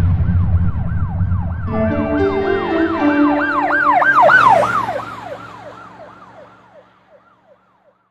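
End of a song: a siren-like electronic tone sweeps up and down about three times a second over held synth chords. The low end drops away in the first couple of seconds, and after about five seconds everything fades out.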